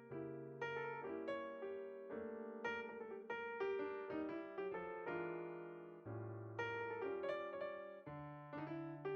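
Background music: solo piano (or electric piano) playing chords and a melody at an even pace.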